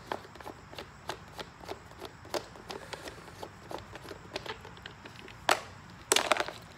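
Plastic clicks, taps and rattles of a welding helmet's head harness being worked loose and pulled out of the helmet shell by hand, with a sharper knock about five and a half seconds in and a quick flurry of clicks near the end.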